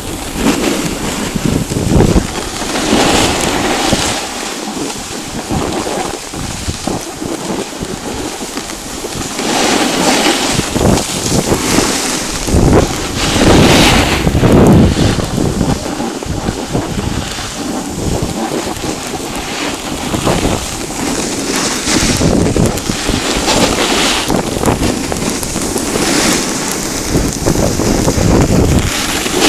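Wind buffeting the microphone of a camera carried down a ski run, mixed with the hiss and scrape of sliding over packed snow. It comes in loud surges that rise and fall every few seconds.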